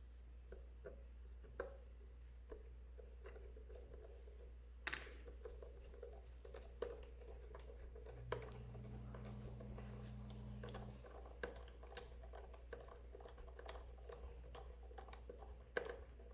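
Faint small clicks, taps and scrapes of bolts and plastic parts being handled and threaded by hand into a toy ghost trap's bottom plate, with a sharper click about five seconds in. A low hum sounds for about three seconds partway through.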